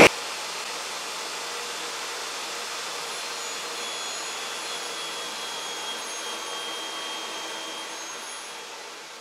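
Table saw running as a redwood fence board is ripped into 2-inch strips. The sound is a steady whine that opens with a brief loud burst and fades away near the end.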